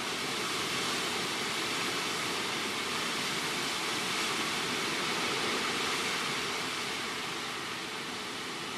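Hurricane-force wind rushing through tree leaves, a dense hiss that swells a little and then eases near the end.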